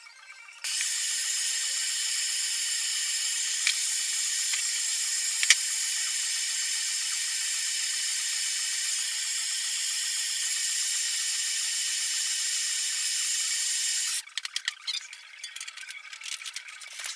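Blowtorch flame hissing steadily as it heats a length of steel rebar to soften it for bending. The hiss starts abruptly about a second in and cuts off near the end, followed by a few clicks and rattles.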